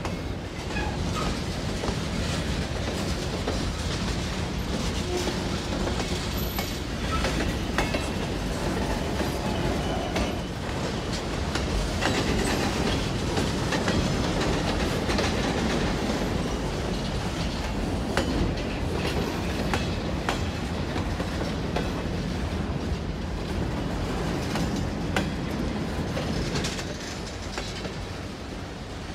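Freight train cars rolling past, steel wheels clicking over rail joints in an uneven rattle over a steady rumble, a little quieter near the end.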